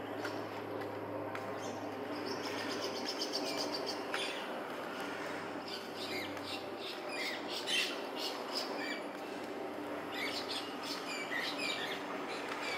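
Small birds chirping in short, quick calls that come thicker in the second half, over a steady low background hum.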